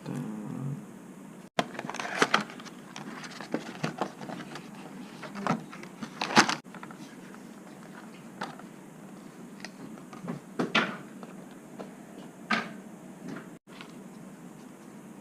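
Close handling sounds of a plastic phone case: scattered clicks, taps and rustles at irregular intervals, with two brief complete cut-outs in the audio.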